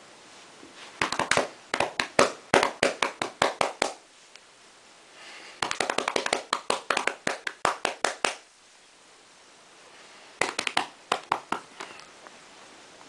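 Two hands rapidly patting a cat's furry body like bongo drums, in three quick runs of slaps, several a second, with short pauses between.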